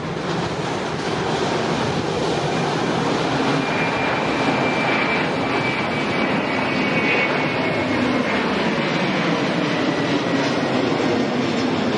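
Twin turbofan engines of an Airbus A330 at takeoff thrust as it climbs out after lift-off: a loud, steady jet noise that builds over the first second, with a faint high whine that drifts slowly lower.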